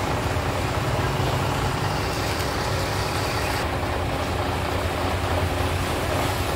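A truck-mounted mobile crane's diesel engine idling steadily, a low even rumble.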